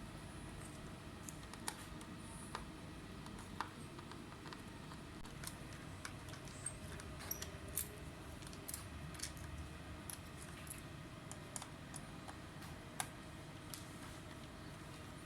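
Scattered light clicks and taps at an irregular pace, the sound of small parts and tools being handled, over a steady low hum.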